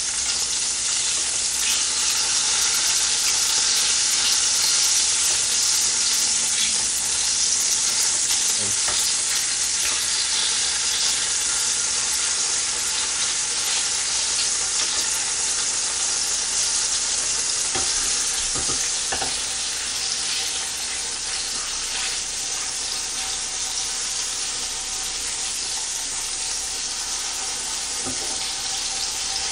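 Tofu slices sizzling steadily as they pan-fry in oil. A few knocks sound near the middle and near the end.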